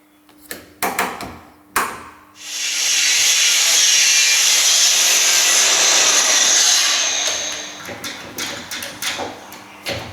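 A power tool working wood runs steadily for about five seconds, starting abruptly and fading away, with a few wooden knocks before and after.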